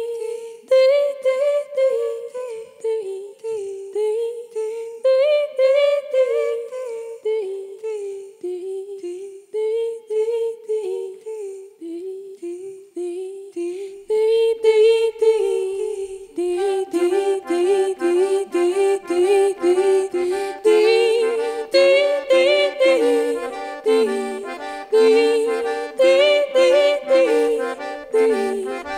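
Diatonic button accordion playing a folk tune. It starts as a single stepping melody line, then grows into a fuller sound with chords and a held drone from about halfway through.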